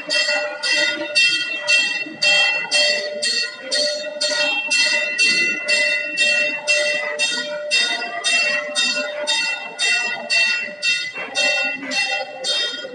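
Temple bell rung continuously at aarti, its clapper striking in a fast, even rhythm of about three strokes a second, each stroke ringing on into the next.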